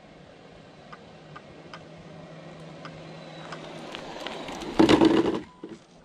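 Electric RC drag car (Team Associated DR10) launching down the road: a short, loud burst of motor and tyre noise about five seconds in, after a few seconds of quiet ticks and a faint rising hiss.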